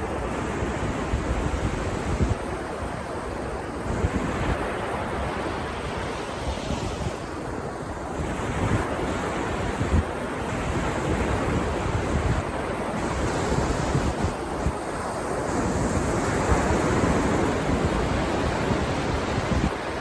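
Ocean surf washing onto the beach, the waves breaking and receding in a continuous wash that swells up in the second half, with wind buffeting the microphone.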